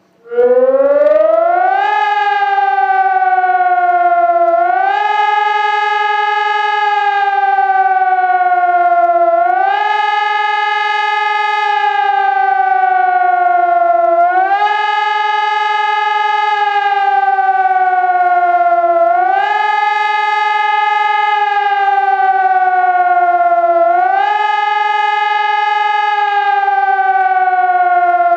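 SES 1200 civil-defence siren sounding the German public-warning signal (Warnung der Bevölkerung), a wailing tone that starts up about a third of a second in. It repeatedly rises quickly, holds for about two seconds, then falls slowly, roughly every five seconds.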